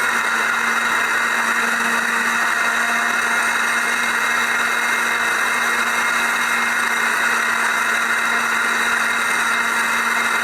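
Electric blender running steadily at one even speed, blending grated lemon, sugar and water into a liquid.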